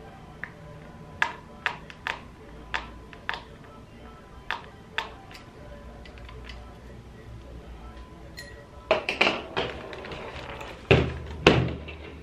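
Sharp plastic clicks, one or two at a time, as a replacement keyboard is pressed into place in a Lenovo G400 laptop's chassis. Near the end comes a cluster of louder knocks and thuds as the laptop is turned over and set down on the desk.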